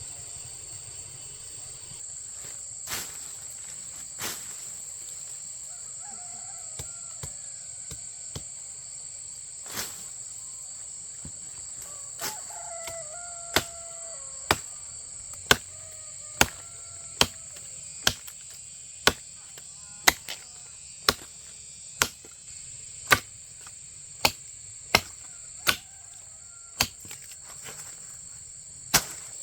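Steady high-pitched insect chorus. Sharp knocks start about halfway through and repeat about once a second.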